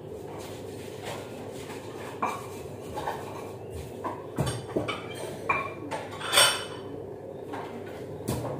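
Kitchen clatter: pots, pans and utensils knocking and clinking at irregular intervals, with the loudest clank a little past the middle.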